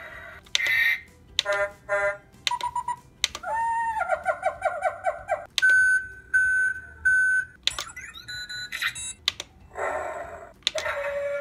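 Electronic sound effects from the PAW Patrol PAW Terrain Vehicle toy, set off by its orange paw button: a string of short beeps, a warbling two-note alarm about four seconds in, three even beeps, then quick falling chirps and a held tone near the end.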